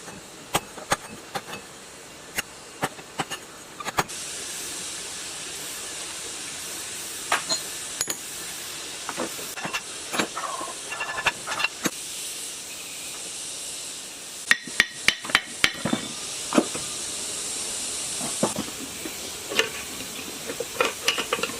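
Metal tools clinking, tapping and knocking on the parts of a water-flooded, rusted tiller engine as it is taken apart, with a quick cluster of knocks past the middle. A steady hiss starts a few seconds in and cuts off a few seconds before the end.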